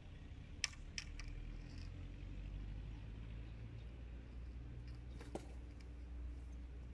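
A few sharp, light clicks and knocks from an angler handling the landing net and tackle over a netted carp, two or three about a second in and another near the end, over a low steady rumble.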